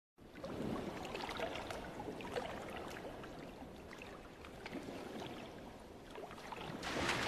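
Cartoon sound effect of churning, splashing water with bubbling and many small splashes, growing louder near the end.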